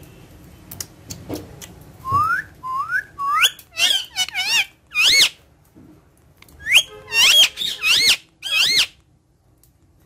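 Rose-ringed (Indian ringneck) parakeet whistling: three short rising whistles about two seconds in, then a run of louder up-and-down whistles, a brief pause, and a second burst that ends about a second before the close.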